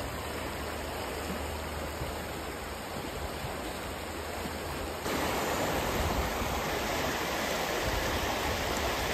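River water rushing over a stony bed, a steady rush that gets louder about five seconds in.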